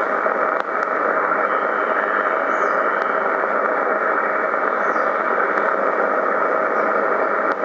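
HF SSB receiver of a homebrew GEK-2C transceiver hissing steadily through its speaker in LSB as the tuning knob is turned across the 40-metre band, with a few faint clicks.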